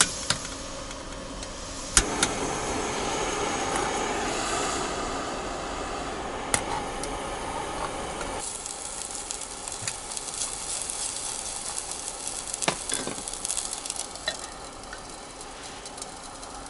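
Food sizzling as it is reheated in a small camping pan on a portable gas-canister burner, with a few sharp clicks of metal on the pan. The sizzle is fullest in the first half and thins to a higher hiss about halfway through.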